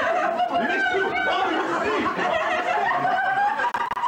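Several people laughing at once, their voices overlapping.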